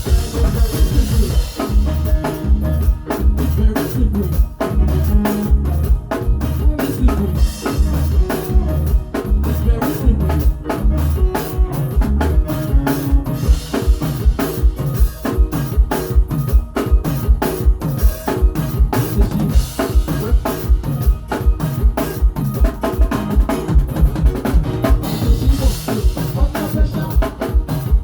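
Drum kit played in a steady, busy groove with bass drum and snare, along with pitched music underneath.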